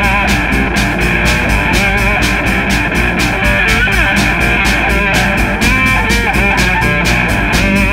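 Rock music with guitar over a steady, fast drum beat.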